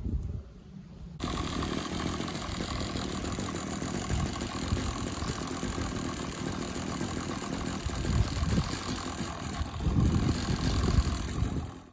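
An engine running steadily, setting in abruptly about a second in, with its low rumble swelling near the end.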